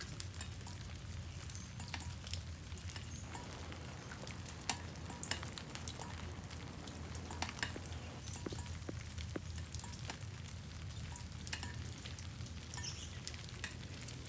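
Freezing drizzle pattering on ice-coated shrubs and ground: many small, irregular sharp ticks over a low steady hum.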